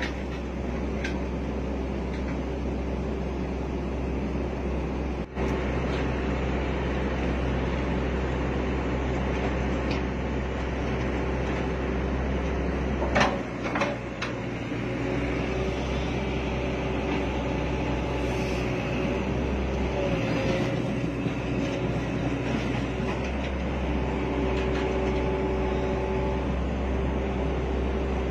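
Excavator diesel engine running steadily under load during the recovery of a machine sunk in peat, with a steady low rumble and a whine that comes and goes. A single sharp knock sounds about thirteen seconds in, and the low engine note dips briefly around it.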